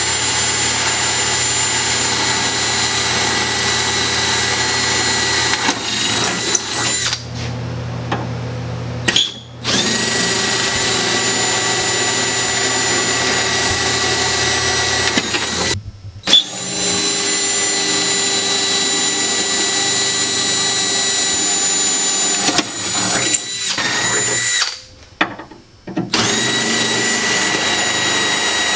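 Power drill with a 3/16-inch bit running at a steady whine, drilling from the back side through pre-drilled holes. It runs in four long stretches, stopping briefly about 8, 16 and 25 seconds in.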